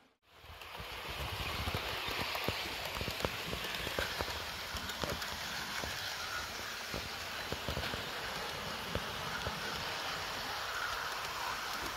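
Hornby OO gauge model steam locomotive and coaches running along the track: a steady rolling rattle with many small clicks of the wheels over the rail joints, fading in over the first second.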